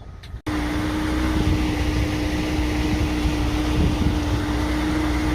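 Gasoline outboard motor running steadily with one constant hum over a low rumble. It starts abruptly about half a second in.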